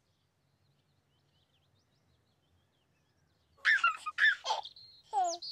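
Near silence for about three and a half seconds, then a baby giggling in a few short bursts, ending in a quick falling squeal.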